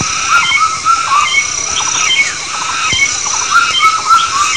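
Several birds chirping in quick, repeated short calls over a thin, steady high-pitched tone.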